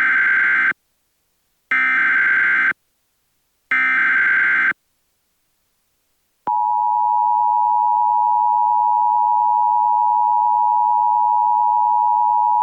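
Emergency Alert System activation: three identical one-second bursts of SAME header data, a second apart, with a buzzy digital warble. After a short silence the steady two-tone EAS attention signal starts about six and a half seconds in and holds at constant pitch and level.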